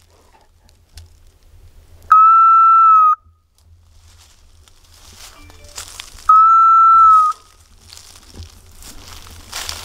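Dog's beeper collar sounding two identical steady electronic beeps about a second long each, roughly four seconds apart. Dry leaves and twigs rustle and crackle underfoot, louder near the end.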